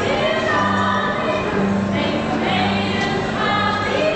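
A small group of women's voices singing together in harmony, with a bowed cello holding sustained low notes beneath them.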